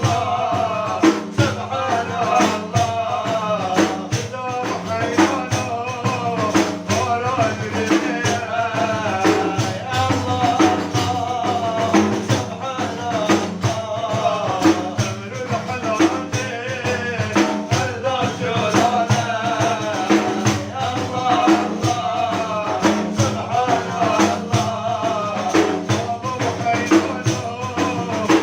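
Kurdish madih, a religious praise song, sung by a male voice over a steady rhythm of hand-struck frame drums with jingles.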